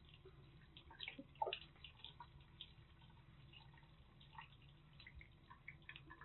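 Faint trickle of a thin stream from a washbasin tap, with scattered drips and small splashes as water runs over a wet kitten in the sink; one short louder sound about a second and a half in.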